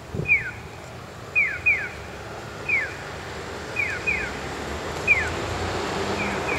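Audible pedestrian crossing signal at a Japanese crosswalk giving its electronic 'piyo' chick call during the walk phase: short falling chirps about every 1.2 seconds, alternating single and double. Steady traffic noise runs underneath, with a brief low thump at the very start.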